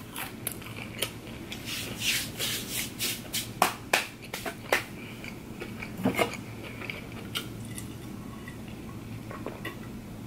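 Close-miked chewing of a breaded chicken nugget: irregular wet mouth clicks and small crunches, thickest in the first half and thinning out later.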